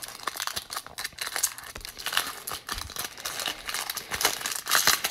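Foil wrapper of a trading-card pack crinkling and crackling as it is handled, with irregular bursts of crackle that get loudest near the end.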